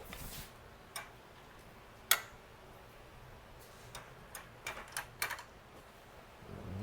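A few scattered light clicks and taps of small parts being handled and adjusted, about seven in all and unevenly spaced. The sharpest comes about two seconds in.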